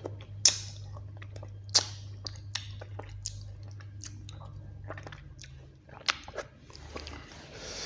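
Close-miked chewing and biting of food, with wet mouth sounds and a string of sharp crunchy clicks. The loudest clicks come about half a second in, just under two seconds in and about six seconds in, over a steady low hum.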